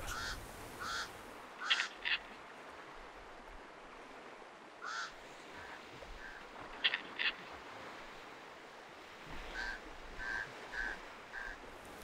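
Pied crows calling with short harsh caws, a few scattered at first, then a run of about six evenly spaced calls near the end, over a faint steady hiss.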